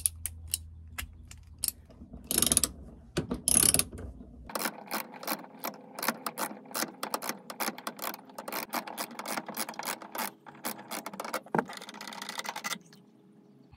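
Ratchet wrench clicking as a van seat's floor bolt is backed out: scattered clicks and two louder bursts of noise in the first few seconds, then a quick, even run of clicks, about five a second, that stops shortly before the end.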